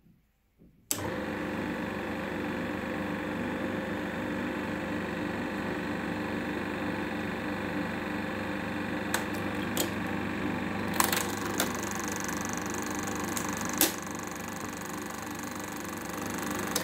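A Hokushin 16mm film projector is switched on about a second in and runs steadily with a mechanical clatter while it auto-threads film. Several sharp clicks come in the second half. It shuts off suddenly at the end.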